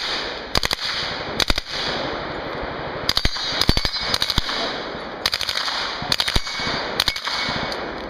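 Closed-bolt submachine gun firing on full auto in short, controlled bursts of two to four shots, eight bursts in all, roughly a second apart.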